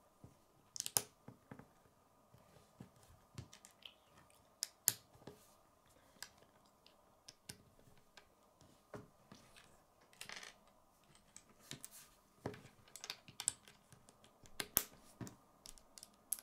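Small plastic LEGO bricks being handled and pressed together, with scattered sharp clicks and light taps as pieces are snapped on and set down on a wooden tabletop.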